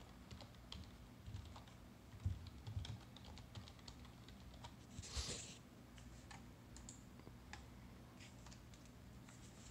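Faint, irregular keystrokes on a computer keyboard as a password is typed, with a short hiss about five seconds in.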